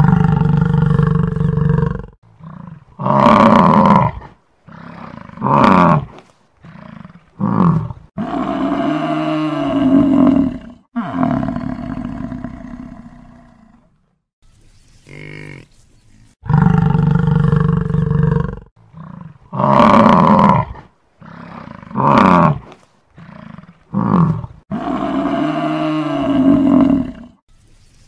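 Buffalo bellowing and grunting in a series of loud calls, some long and drawn out, others short, with the pitch swinging up and down. The same run of calls repeats about halfway through.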